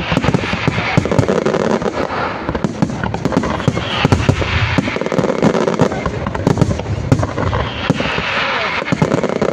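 Fireworks finale barrage: aerial shells bursting in a dense, continuous run of bangs, several a second, mixed with crackling.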